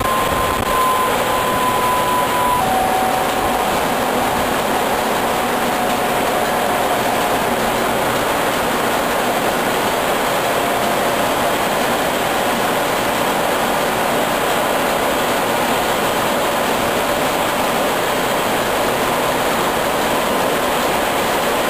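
Loud, steady engine-room noise of a large two-stroke MAN B&W marine diesel and its Mitsubishi MET turbocharger running. A faint whine falls in pitch over the first several seconds, then the roar holds even.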